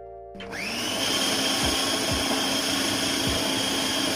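Electric food chopper's motor starting up about half a second in with a rising whine, then running steadily as its blade chops a bowl of onions.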